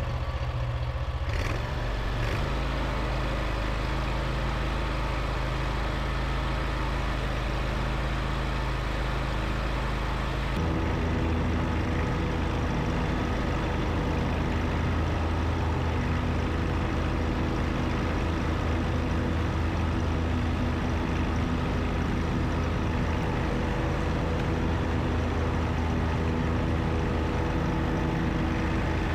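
John Deere riding lawn mower engine running steadily while mowing. About ten seconds in, its note shifts and holds steady at the new pitch.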